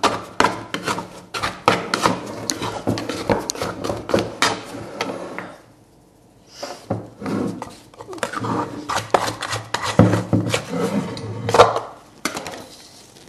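A dough scraper scraping and knocking against a mixing bowl as risen bread dough is worked out of it: a run of short scrapes and taps, a brief pause about six seconds in, then more knocks and scrapes as the dough is handled on the floured worktop.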